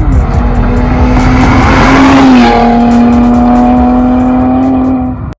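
A car driving at speed, its engine note held steady with small shifts in pitch, and a swell of tyre and road noise about two seconds in. It cuts off suddenly near the end.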